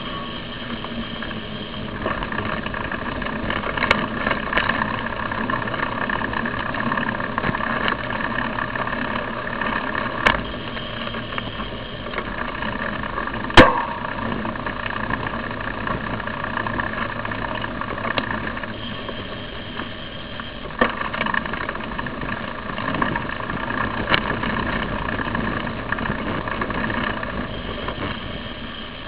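Steady hum and rumble of a camera travelling on a moving bicycle, with a few sharp knocks, the loudest about halfway through.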